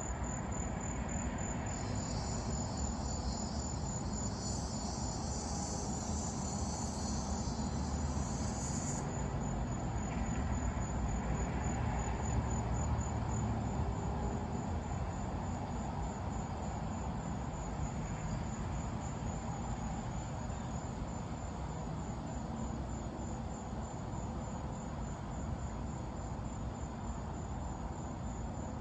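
Crickets chirping steadily in a fast, even high-pitched pulse, with a second insect's higher buzz for several seconds near the start. Underneath is a constant low rushing of wind and light rain.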